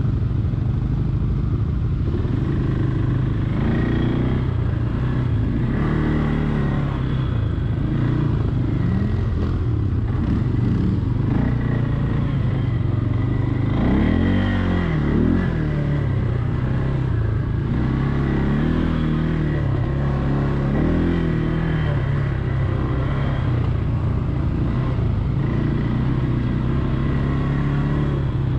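Quad (ATV) engine running while riding a trail, its pitch rising and falling repeatedly with the throttle, with the biggest rev about halfway through.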